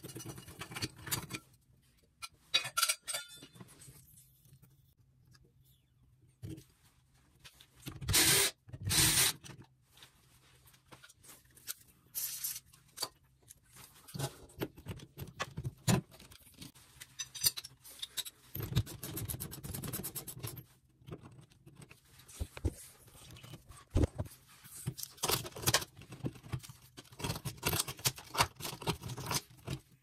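Metal hand tools on a stuck Kohler push-button shower diverter: a 3/4-inch socket and breaker bar clicking and scraping against the brass cartridge as it is worked loose. Two loud clatters come about eight and nine seconds in, and a short run of quick clicks comes near the middle.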